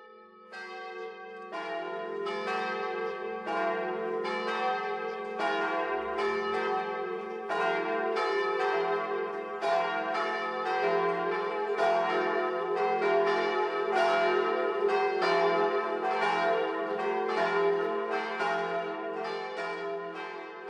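Church bells ringing in a continuous peal, overlapping strikes about twice a second over a steady ringing hum, swelling in over the first two seconds.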